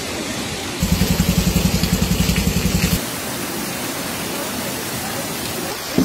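Muddy floodwater rushing down a street, a steady roar of moving water. About a second in, a low, fast throbbing joins it for about two seconds and then stops.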